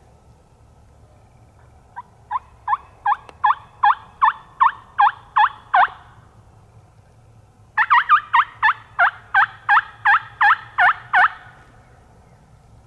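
Two series of turkey hen yelps, each about ten evenly paced notes at roughly three a second, with a short pause between the series.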